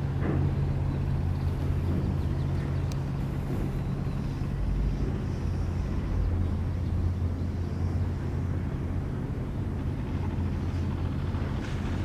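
A steady low engine drone with faint outdoor background noise.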